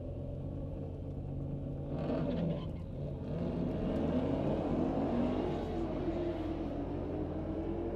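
Dodge Challenger Scat Pack's 6.4-litre HEMI V8 running at low speed, heard from inside the cabin as the car creeps forward; from about two seconds in the engine note rises and falls with the throttle and gets a little louder.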